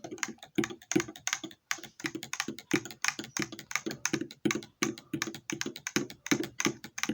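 Rapid, irregular clicking and tapping, several light clicks a second with no break.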